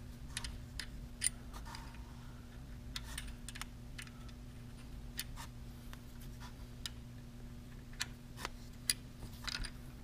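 Light, irregular metal clicks and ticks of a small 1/4 inch open-end wrench being refitted and turned on an Allen wrench in a fitting, over a faint steady low hum.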